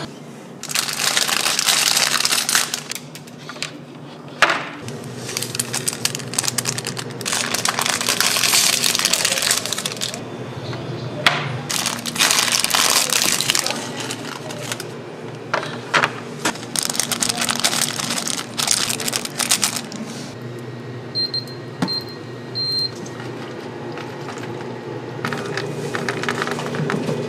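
Plastic instant-ramen packets crinkling in repeated bursts as they are handled and torn open, with a steady low machine hum underneath. A little past two-thirds through come three short high electronic beeps, and near the end water runs from the dispenser into the paper bowl.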